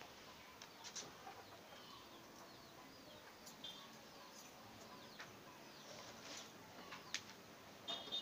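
Faint outdoor bird chirps and chicken clucks, scattered and short, with a few soft clicks.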